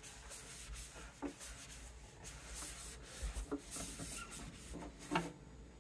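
Repeated rubbing strokes on the guitar's wooden body and binding, wiping off fish glue residue with warm water, with a few light knocks in between.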